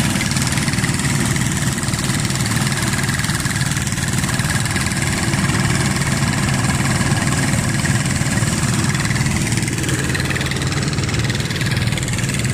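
An engine running steadily with an even low drone that does not change.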